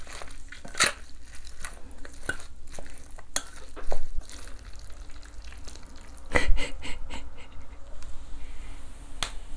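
Wooden spoon mixing rice, radish salad and doenjang stew in a stainless steel bowl: soft wet stirring with many small clicks and scrapes against the metal, and a few louder knocks about four and six and a half seconds in.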